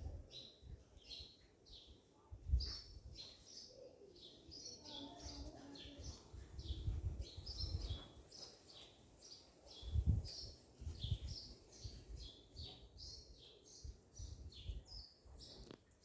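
Small birds chirping in quick, short, high chirps, several a second, with a few low thuds about two and a half and ten seconds in.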